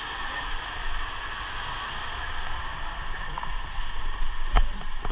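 A vehicle running: a steady low rumble under a rushing hiss, with a sharp knock near the end.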